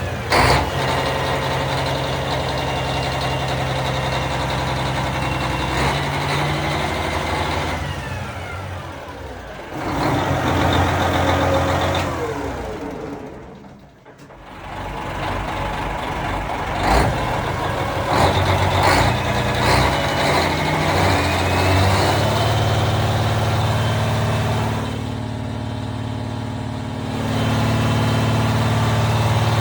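Boat's diesel engine running just after its fuel injection pump was repaired for a fuel leak, with the idle not yet adjusted. Partway through its speed falls away and the sound sinks almost to nothing, then it picks up again and settles into a steady run.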